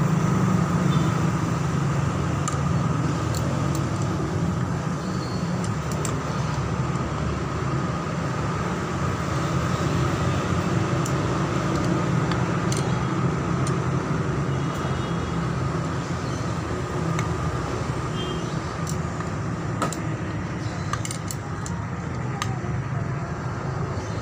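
Steady low mechanical rumble with scattered light metallic clicks and clinks, like small metal parts being handled.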